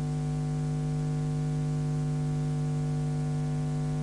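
Steady electrical hum with a buzzy set of overtones over faint hiss, unchanging throughout.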